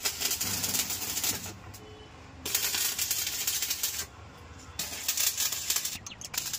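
Arc welding with a stick electrode on steel tube: the arc crackles steadily in three stretches of a second or more, with short lulls between as the welder stops and strikes again.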